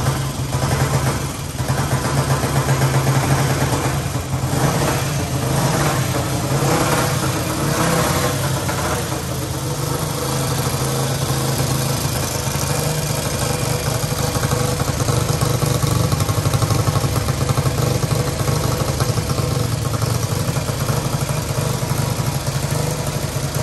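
Vintage Automoto motorcycle's single-cylinder side-valve four-stroke engine running, blipped unevenly over the first several seconds, then settling to a steady idle.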